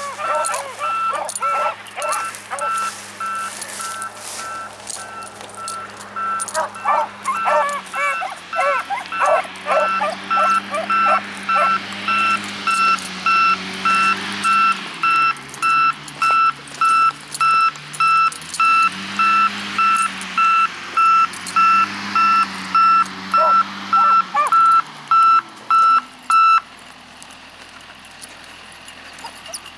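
Road construction machine's reversing alarm beeping in a steady repeating pattern over its engine, which rises and falls in pitch as the machine works; the beeping stops about 26 seconds in. Beagles bark and bay here and there.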